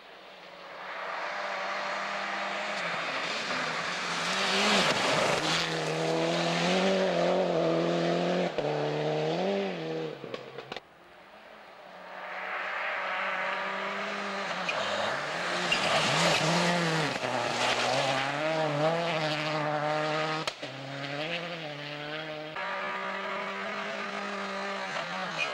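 Two rally cars, one after the other, driven flat out toward the listener. Each car's turbocharged four-cylinder World Rally Car engine grows louder as it comes, its revs rising and falling with gear changes and lifts of the throttle. The first car's sound cuts off about eleven seconds in, and the second car's engine then builds up.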